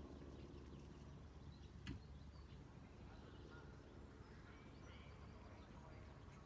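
Near silence: a faint steady low rumble, with a few faint short chirps and a single click about two seconds in.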